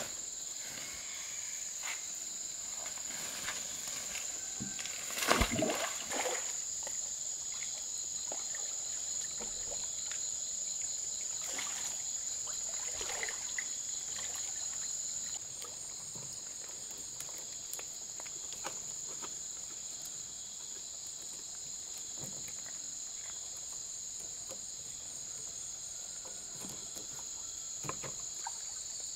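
Steady, high-pitched drone of rainforest insects, with a second, pulsing insect call in the middle part. A single thump about five seconds in, and scattered light knocks and rustles.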